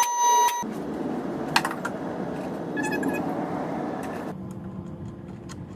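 A steady electronic beep tone cuts off about half a second in, then comes the rushing splash of fluid draining from the 1996 Camaro Z28 into a drain pan. The rush eases after about four seconds to a quieter trickle.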